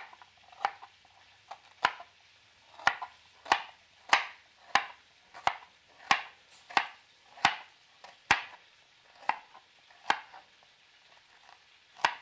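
Kitchen knife slicing a peeled carrot into rounds on a wooden cutting board: a sharp tap of the blade on the board about every half second, pausing briefly near the end before one last cut.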